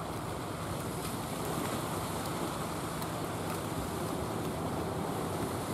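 Steady wash of sea waves with wind noise on the microphone, and a faint low steady hum underneath.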